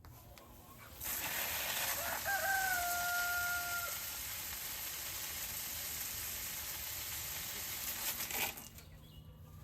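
A rooster crows once, a single held call that rises slightly at the start and then stays level. It sits over a loud steady hiss that starts about a second in and stops suddenly near the end.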